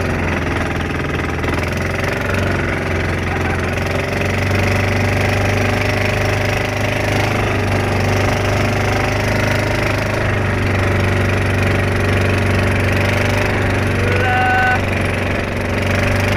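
Bangka outrigger boat engines running steadily at speed, a loud continuous drone with a strong low hum. A short higher-pitched tone sounds briefly about 14 seconds in.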